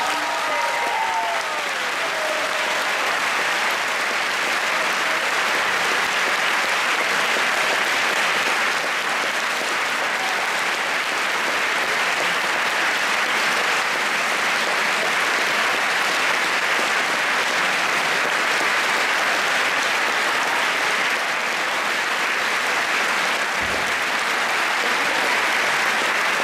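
Large audience applauding steadily after the piece ends.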